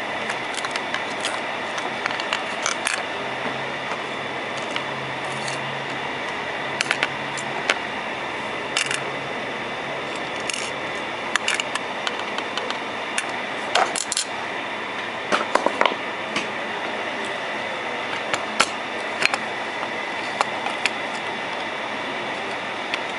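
Steady fan-like hiss with a thin high whine, with irregular light clicks and taps of small tools, a quick cluster of them about two-thirds of the way through.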